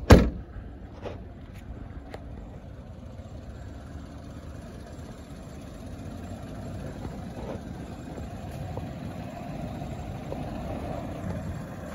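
The rear liftgate of a 2018 Chevrolet Trax shut with one loud thud at the very start, followed by a steady low outdoor rumble of vehicle noise.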